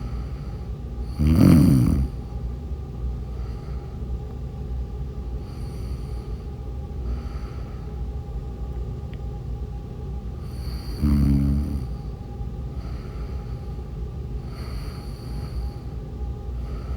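A sleeping person snoring: two loud, rough snores about ten seconds apart, one about a second in and one past the middle, with quieter breaths between them over a steady background hum.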